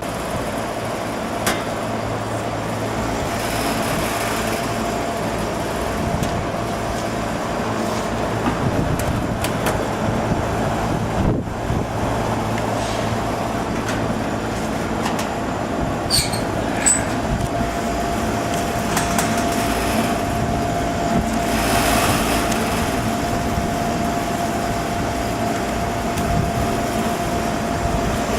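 HVAC unit running: a steady mechanical drone with a constant whine over it and a few light clicks and knocks.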